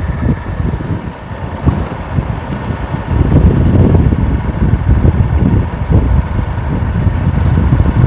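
Wind buffeting the microphone of a moving motorcycle, over the engine and road noise; the gusting rumble grows louder about three seconds in.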